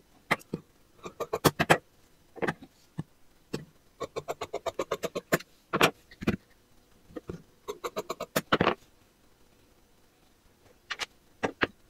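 Large tailor's shears cutting through folded cotton fabric: runs of quick crisp snips, about six to eight a second, broken by short pauses and a few single clicks.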